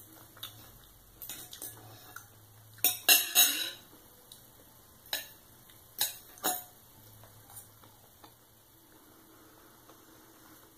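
Knife and fork clinking and scraping against a plate while cutting and picking up pancake, in scattered sharp clicks with the loudest cluster about three seconds in.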